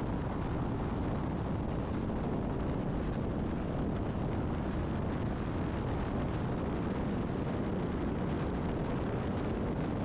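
Steady rumble of wind buffeting an exterior-mounted camera and tyre and road noise at highway speed, alongside a passing tractor-trailer.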